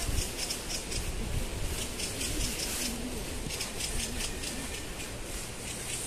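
A small bird in the trees giving a dry, rapid chattering rattle in repeated short bursts, over a low rumble.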